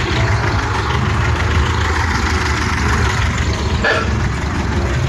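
Car engine idling steadily with an even low pulse.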